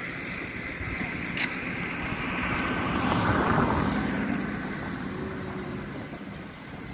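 A road vehicle passing by: its noise grows, peaks about three and a half seconds in, then fades away.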